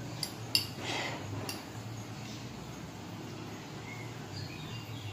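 A metal fork clinking against a glass bowl of noodles, four sharp ticks in the first second and a half, the second the loudest, over a low steady hum.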